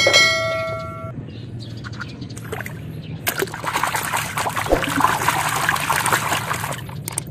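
A bell-like chime rings for about a second at the start. Then, from about three seconds in, a hand sloshes and splashes through thick, muddy water.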